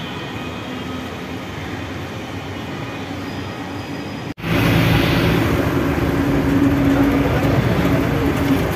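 Steady outdoor street noise during a walk beside a railway track. After an abrupt cut about four seconds in, louder steady bus cabin noise takes over, with a low engine drone.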